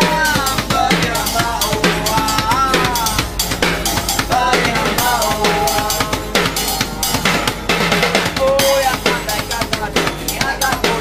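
A busker band playing: a drum beaten in a steady, busy rhythm with a wavering melody line carried over it.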